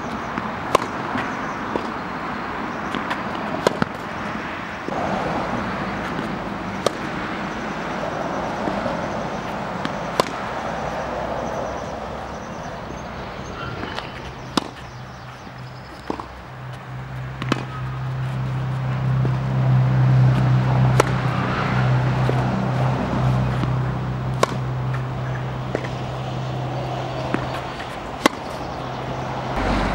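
Tennis ball struck by a racket in a rally: a sharp single crack about every three seconds. Behind it is steady outdoor noise, with a low steady hum that sets in about halfway and swells, then fades near the end.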